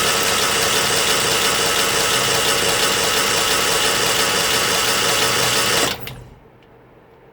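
Moto Guzzi T3 California's 850 cc V-twin engine running steadily, then shut off about six seconds in. At this point no oil is yet reaching the cylinder head feed hoses.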